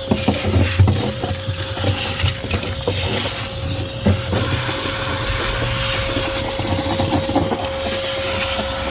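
A small motorised tool running steadily with a constant hum, amid irregular scraping and rattling.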